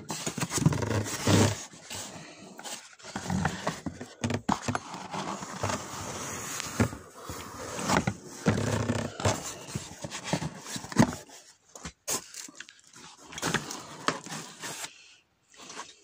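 Cardboard boxes being handled and rummaged through: irregular rustling and scraping of cardboard and paper packing, with many sharp clicks and knocks, easing off near the end.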